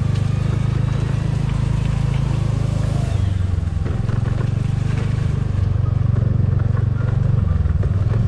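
A TVS Ntorq 125 scooter's single-cylinder engine running steadily at low speed while riding over a rough, muddy dirt track, with a few light rattles from the bumps.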